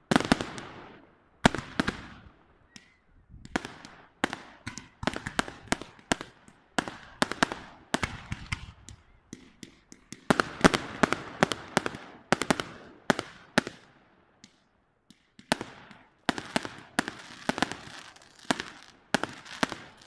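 Aerial fireworks display: shells bursting in rapid volleys of sharp bangs and crackle, with a short lull about two-thirds of the way through before the volleys resume.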